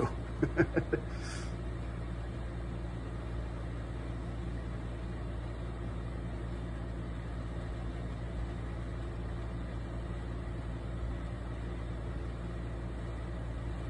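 Steady low hum of room background noise, even throughout, with a few faint short pitched sounds in the first second or so.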